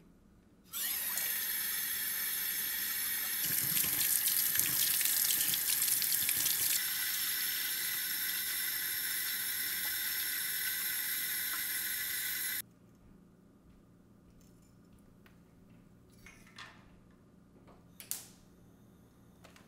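Water running from a kitchen tap into a pot, heavier and splashier for a few seconds near the start, then shut off suddenly. After a quiet stretch comes a short click as a gas stove knob is turned.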